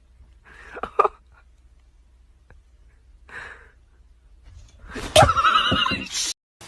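An animal crying out three times: two short calls, then a long, loud, wavering call that cuts off abruptly.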